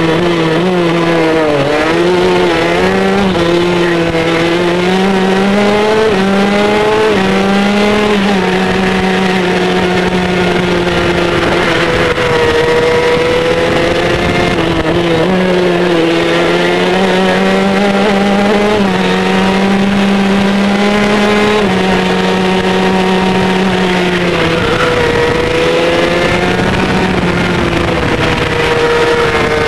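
Honda junior gearbox kart's two-stroke engine at racing speed, heard onboard. The revs climb and then drop sharply again and again through gear changes and braking.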